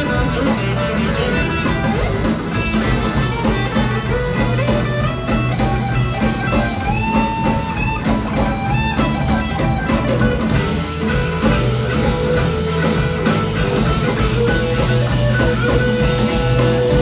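Live blues-rock band playing: electric guitars over bass and drums, with long, bending held notes on top.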